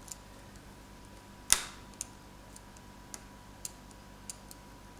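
Fingers pressing small parts into an opened Samsung Galaxy Note 7: one sharp snap about a second and a half in, then a few faint clicks.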